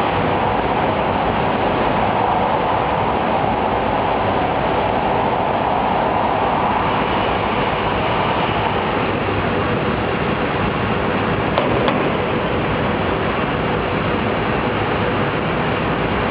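Steady loud noise of a glassworks hot shop, with the glass furnace and its ventilation running, and one short knock about twelve seconds in.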